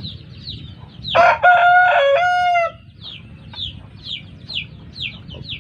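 A chicken gives one loud call about a second in, lasting about a second and a half in two parts, steady in pitch and rising slightly at the end. Quick high chirps repeat in the background.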